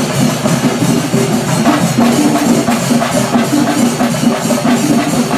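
Live festival procession music: drums keeping a steady, fast beat, with a low pitched melody running beneath it.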